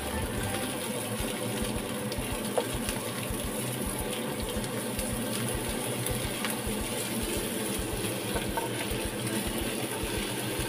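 Sliced bitter melon sizzling steadily in oil in a nonstick frying pan as it is stir-fried, with a few light knocks of the spatula against the pan.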